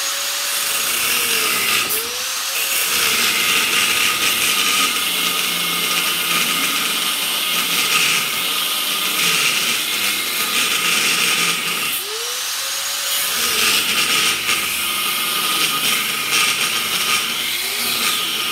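Handheld electric grinder grinding through the weld seam of a small transformer's steel casing: a continuous steady whine over a gritty hiss of disc on metal. The motor's pitch dips and recovers several times as the disc bites, around two seconds in and again about twelve seconds in.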